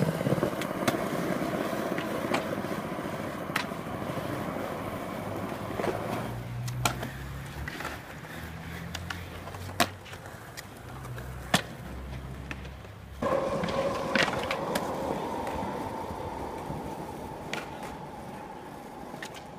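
Skateboard wheels rolling on concrete, with sharp clacks of the board popping and landing, and the scrape of the trucks grinding along a concrete ledge in the last few seconds. The sound changes suddenly twice as one short clip cuts to the next.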